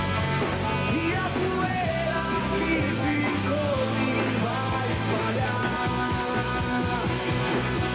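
Rock band playing live, an instrumental passage with electric guitar lines bending in pitch over a steady bass and drums.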